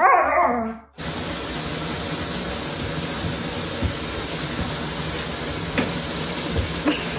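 A dog's howl ends in the first second. After a cut, a bath tap runs steadily into a tub filled with bubble bath, a loud even hiss with a few faint knocks.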